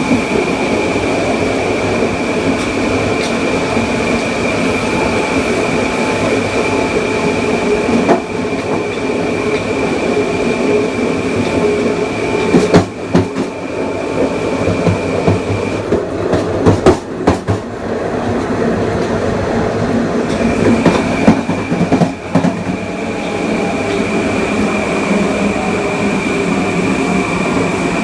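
Inside a Kawasaki M9 electric multiple-unit car under way: the Mitsubishi IGBT-VVVF inverter gives a steady high whine over the hum of the AC traction motors. Just past the middle the inverter tone drops out for about five seconds while the wheels clack over rail joints, then the tone returns.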